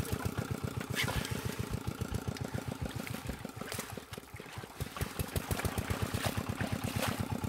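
Small engine running steadily with an even low chugging of about ten beats a second, dipping briefly about halfway, with a few light knocks and splashes from hands working in the wet net and mud.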